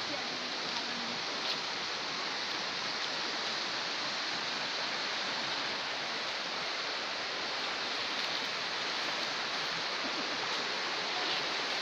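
Small river flowing steadily over rocks, a constant rushing of water.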